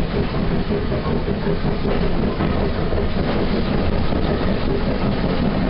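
Bagnall 0-4-0 saddle tank steam locomotive hauling a coach, heard from on board just behind it: a loud, steady rumble of the locomotive working and the wheels running on the track.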